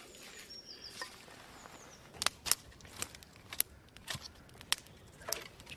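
Campfire of logs and freshly added split wood crackling as it catches, with about seven sharp pops scattered over the last few seconds.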